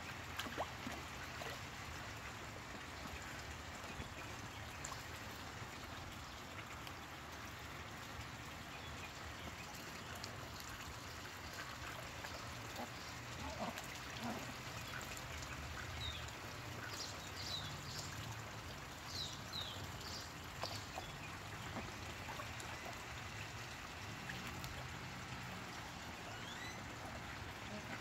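Water trickling steadily in a garden pond, with Rouen ducks splashing and dabbling at the surface as they hunt goldfish. A few short, high chirps come through about two-thirds of the way in.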